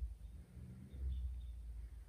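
Quiet outdoor ambience: a low, uneven rumble with a few faint, high bird chirps.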